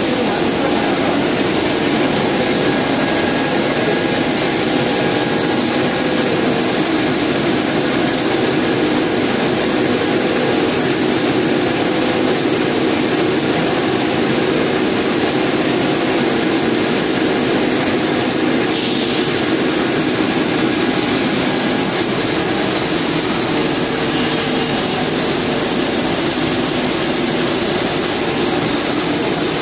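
A ⌀70 LDPE blown-film extruder line running: a loud, steady mechanical drone with a strong airy hiss from its drive motors and cooling-air blower, and a few steady tones.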